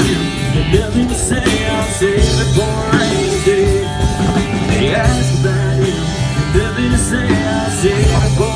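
Live band playing a country-rock song through outdoor stage speakers: a singer's voice over guitar, steady bass notes and drums.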